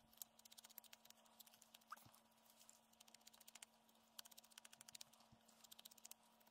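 Near silence with faint, quick scratchy dabs of a foam ink sponge rubbing along the edges of cardstock strips.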